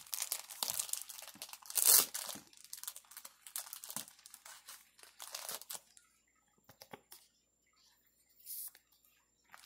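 Plastic card sleeves crinkling and rustling as a trading card is slid into a sleeve, with a sharp, loud crinkle about two seconds in. The handling dies away after about six seconds, with one short rustle near the end.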